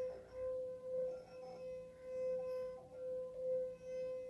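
A water-filled wine glass singing as a wet fingertip is rubbed around its rim, setting the glass vibrating: one steady, pure ringing tone that swells and fades about twice a second as the finger circles.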